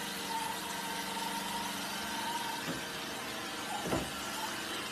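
Robot vacuum cleaner running steadily, a continuous motor hum and brush hiss, with a light knock about four seconds in.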